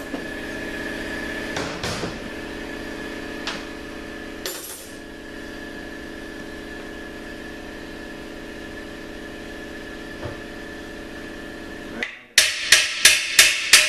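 Hammer blows on steel parts of a 42RLE transmission, driving the rear planet out of the case. There are a few light knocks early on, then near the end about six sharp, ringing strikes in quick succession, about three a second, over a steady shop hum.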